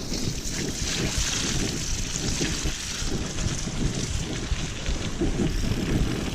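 Wind rushing over the action-camera microphone with the rumble and rattle of a mountain bike riding fast over a trail, steady hiss over uneven low thuds.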